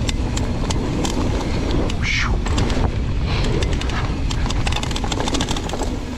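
Wind buffeting the microphone of a mountain bike descending rough trail, with the rattle, clicks and knocks of a Trek Remedy full-suspension bike over trail chatter and small drops. There is a brief higher sound about two seconds in.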